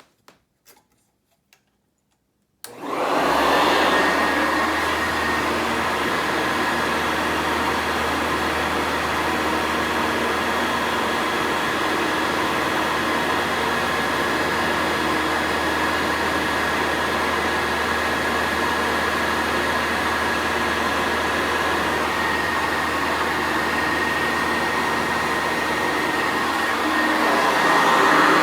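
Two Sanitaire wide-track commercial upright vacuum cleaners switched on together about three seconds in, their motors spinning up within a second and then running steadily with a steady high whine. The sound gets slightly louder near the end.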